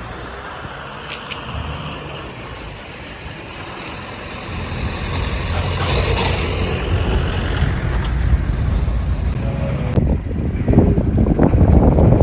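Motor traffic noise from passing vehicles, growing louder about halfway through, with a brief high squeal around six seconds in and heavier low rumbling near the end.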